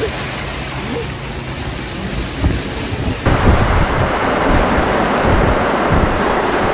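Heavy rain and gusting wind over open water in a squall, with wind rumbling on the microphone. About three seconds in it jumps to a louder, denser hiss of rain.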